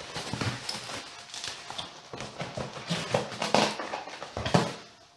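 Plastic bubble wrap rustling and crinkling as a tightly wrapped bundle is pulled out of a cardboard shipping box and handled, with a few sharper crackles.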